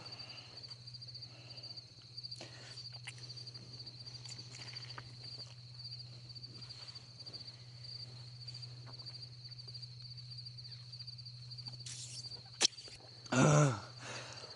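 Crickets chirping in a steady, continuous high trill over a low steady hum. A sharp click comes near the end, followed by a short burst of voice.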